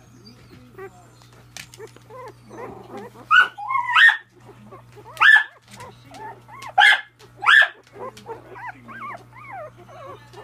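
Miniature dachshund puppies yipping and squealing: a handful of sharp, high yelps between about three and eight seconds in, then a run of short squeaky whines near the end.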